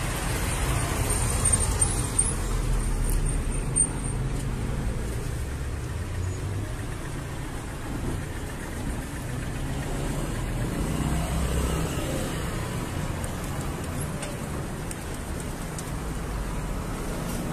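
City street traffic: cars running and passing, a steady low rumble, with one vehicle going by a little louder about ten seconds in.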